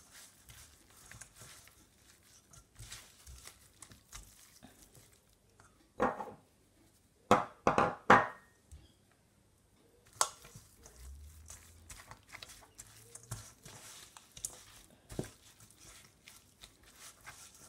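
Hands rubbing seasoning into raw gray snapper pieces in a stainless steel bowl: soft, uneven wet rubbing and squishing, broken by a few sharper knocks in the middle, three of them close together.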